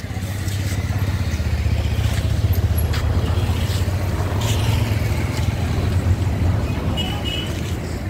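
Motor vehicle engine running close by, a steady low rumble that builds over the first couple of seconds and eases near the end.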